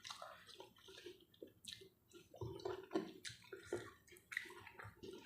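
A person eating with soft, wet chewing and mouth-smacking sounds in short, irregular bursts.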